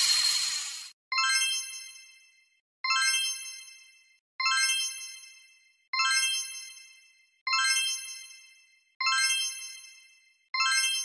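A bright ding chime sound effect, several tones ringing out for about a second, struck seven times about every one and a half seconds. A noisy sound fades out during the first second.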